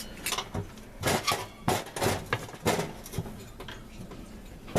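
Hotpoint oven heating element, a metal tube, clanking and scraping against the oven's sheet-metal wall as it is worked loose and pulled out slowly. There are several sharp clanks in the first three seconds, then softer rubbing.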